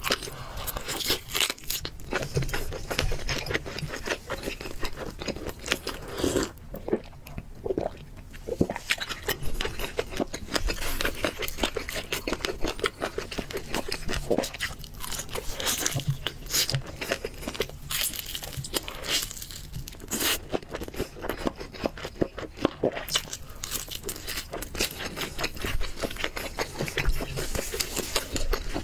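Close-miked eating: crunching bites into crispy-skinned fried and roast chicken, then chewing. There are brief quieter pauses about seven seconds in and again just past twenty.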